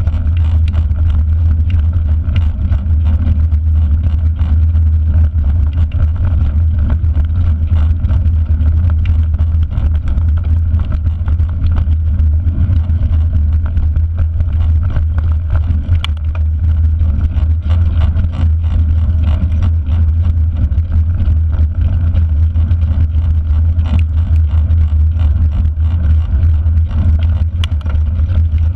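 Steady low rumble from a mountain bike riding fast over forest dirt and gravel tracks, picked up by a handlebar-mounted GoPro: wind and tyre noise on the microphone with frequent small rattles and clicks from the bike.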